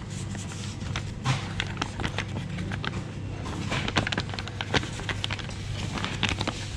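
Brown paper bag rustling and crinkling as hands unfold and open it, with sharp crackles that grow busier in the second half, over a steady low background hum.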